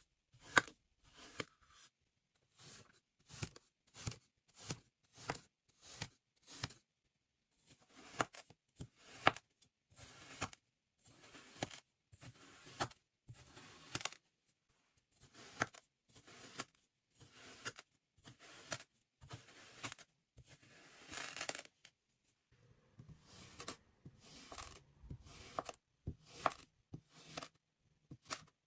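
Chef's knife slicing through molded kinetic sand: a long run of short cutting strokes, about two a second at first, with one longer drawn-out slice about 21 seconds in.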